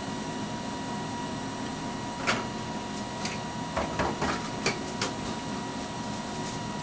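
Ampex 2-inch quadruplex videotape machines running, a steady machine hum with a constant high whine. Between about two and five seconds in come a few sharp clicks and clunks as an operator handles one of the machines.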